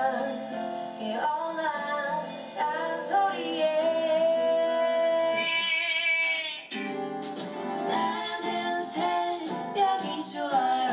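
An upbeat song with a woman singing over guitar, played through a small cork Bluetooth speaker set into a bottle's neck, the bottle acting as its resonator. The sound dips briefly about two-thirds of the way through.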